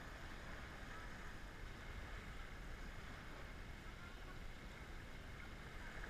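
Steady wind noise on the microphone with light waves washing onto the shore.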